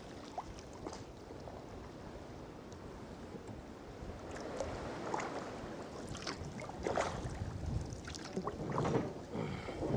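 Sea kayak paddle strokes dipping and splashing in the water, against a steady hiss of wind on the microphone; the splashes grow louder in the second half.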